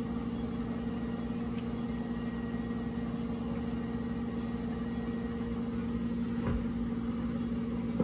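Steady low mechanical hum with a constant pitch, with a faint knock about six and a half seconds in.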